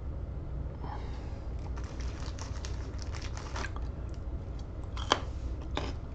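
Scattered light clicks and taps over a steady low electrical hum, with one sharper click about five seconds in.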